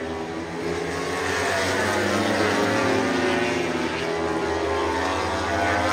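Several MotoGP racing motorcycles running at high revs together, their engine notes rising and falling in pitch.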